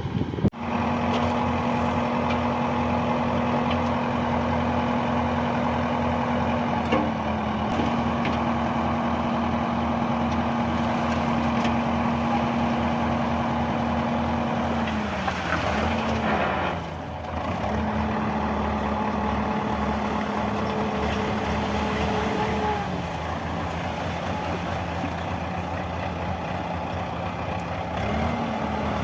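JCB 3DX backhoe loader's four-cylinder diesel engine running steadily at high revs, its pitch dipping briefly about halfway through and again near the end, with a short drop-out after the first dip.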